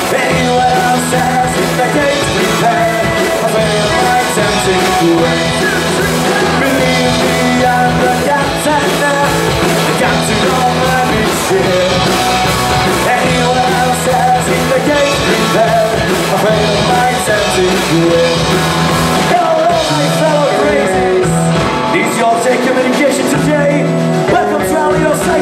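Live rock band playing continuously with accordion, acoustic guitar, electric guitar and drum kit, and a man singing into a microphone over them.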